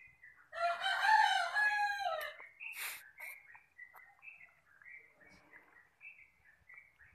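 A rooster crows once, a single long call starting about half a second in and falling in pitch at its end. Small birds chirp faintly afterwards.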